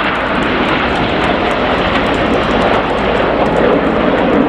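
Formation of BAE Hawk T1 jets flying past with their engines running, a loud steady jet roar with no breaks.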